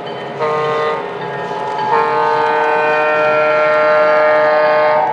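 Sampled diesel horn of a model train's sound system, blown from the model Santa Fe Warbonnet F-unit locomotive: a short blast about half a second in, then a long steady blast from about two seconds in, with a low rumble of wheels on track underneath.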